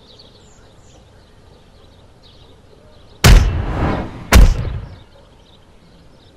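Two heavy booming impact sound effects, about a second apart, each struck hard and dying away over about half a second, laid over a film fight scene.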